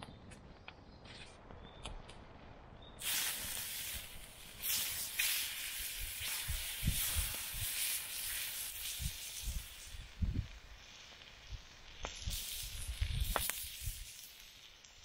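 Raw steak sizzling on a fire-heated flat stone, starting suddenly about three seconds in, dipping briefly near ten seconds and dying down shortly before the end. A few low thuds sound under the sizzle.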